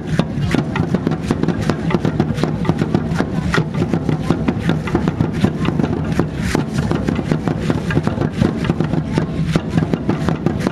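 Aztec dance drumming on large upright drums, with the dancers' seed-pod ankle rattles (ayoyotes) shaking in a dense clatter of clicks with every step.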